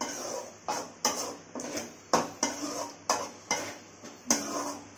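A spoon stirring and scraping a thick, cooked-down tomato and tamarind mixture in a kadai, knocking against the pan about twice a second.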